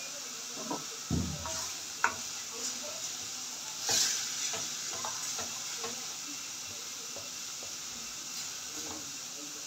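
Minced beef frying in vegetable oil in a metal pan, sizzling steadily while a wooden spoon stirs and scrapes it, with a few knocks of the spoon against the pan, the loudest about a second in and about four seconds in.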